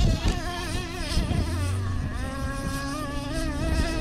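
A nitro RC truck's small two-stroke glow engine buzzing at high revs, its pitch wavering up and down with the throttle and then holding steadier from about halfway. A couple of knocks come right at the start.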